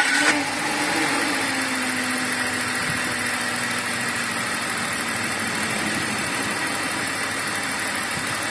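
BMW E39 520i inline-six engine idling just after a start, its idle speed easing down over the first couple of seconds and then running steady.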